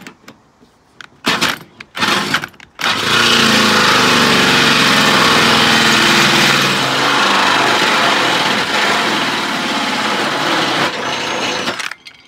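Cordless drill driving a 75 mm hole saw through the sheet-steel front wing of a Suzuki Jimny to cut the snorkel hole. Two short starting bursts are followed by one continuous cut of about nine seconds that stops abruptly near the end.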